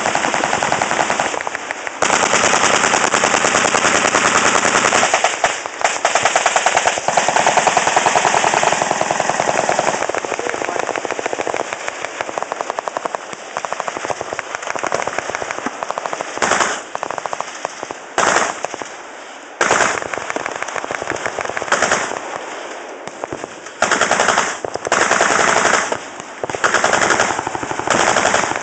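Machine guns firing full-auto: long unbroken strings of rapid shots through the first half, then separate bursts of a second or two with short gaps between them.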